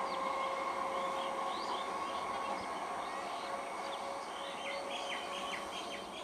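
Indian Railways EMU local train running away, its steady hum and rail noise slowly fading. Birds chirp over it in the second half.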